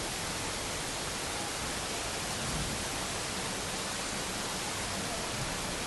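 Steady, even rush of floodwater from a flash-flood torrent running through a street.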